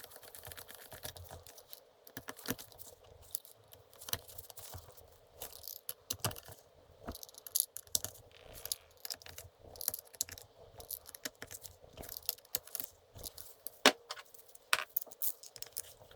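Small metal parts and tools clinking and clicking as they are handled, in an irregular scatter of light taps, with a few sharper knocks near the end.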